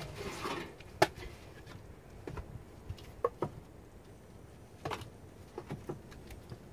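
Split firewood logs clacking against each other as they are picked out of a wheelbarrow and stacked on a woodpile: a rustling scrape at first, then scattered sharp wooden knocks, the loudest about a second in.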